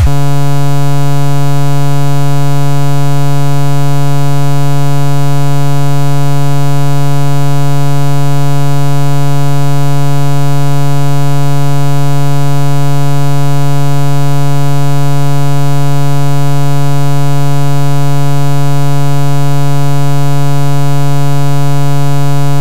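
A single loud, steady electronic buzzing tone held at one low pitch with many overtones, unchanging, with no rhythm or melody.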